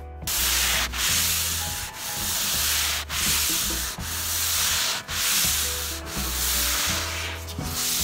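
Super-fine sanding pad rubbed by hand over a shellac-finished wood surface in back-and-forth strokes, about one a second, knocking down nibs in the shellac between coats.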